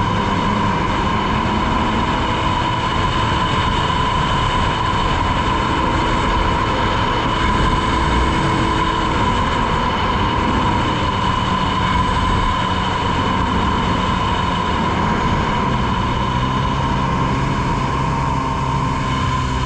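Engine and jet pump of a 2003 Polaris Virage personal watercraft running steadily at speed on the water: a steady high whine over a dense rush of noise. Its lower engine notes shift to a new steady pitch near the end.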